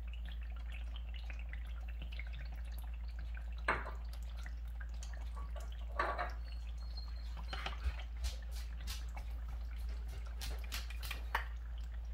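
Chopped green chili and garlic simmering in oil in a frying pan, a steady fine crackle of small bubbles. A stirring spoon knocks against the pan about five times.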